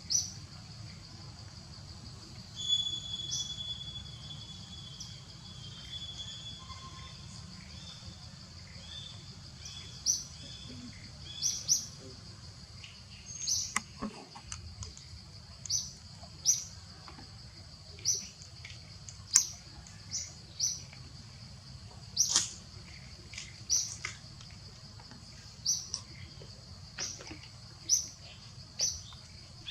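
Short, high-pitched animal chirps repeating every second or two, with a longer held high note a few seconds in.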